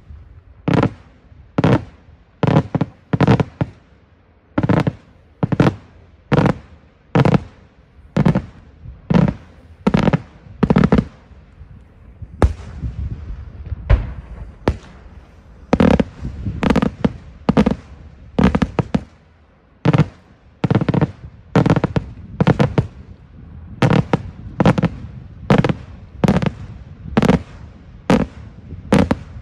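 Daytime fireworks: aerial shells bursting overhead in a long, irregular series of loud bangs, about one or two a second, with a brief thinning of the bangs about halfway through.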